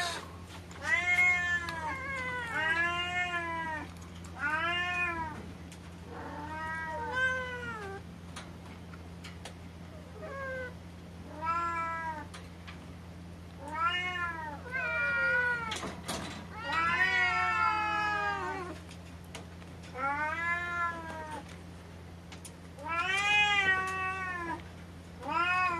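A cat meowing over and over: about a dozen drawn-out meows, each rising and then falling in pitch, with short pauses between. A steady low hum runs underneath.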